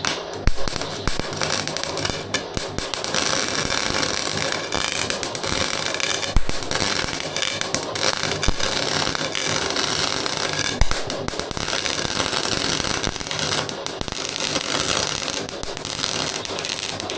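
Welding arc crackling and spitting in one long continuous bead, starting suddenly, with a few sharper pops along the way.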